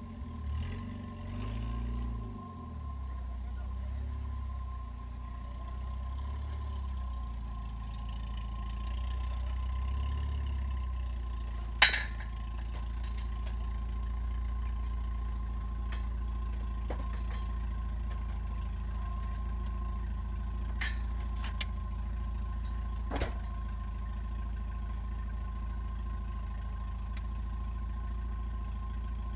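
Eagle Talon's engine running steadily at idle, heard from inside the cabin, with a few sharp clicks and knocks, the loudest about twelve seconds in.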